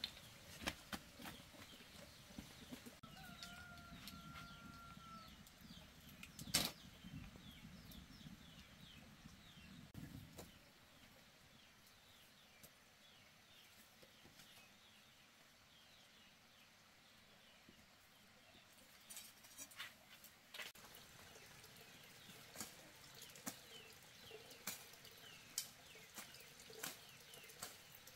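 Near silence with faint scattered clicks and rustling, and one brief pitched call about four seconds in.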